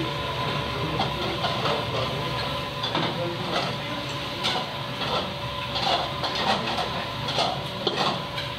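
Busy kitchen at the stove: a steady roar from the cooking range and extractor hood, with frequent clinks and knocks of bowls and utensils being handled.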